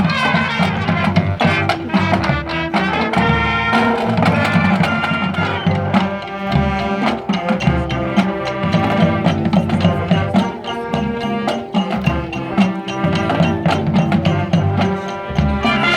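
Marching band playing: brass and percussion, with steady drum strokes under sustained horn chords.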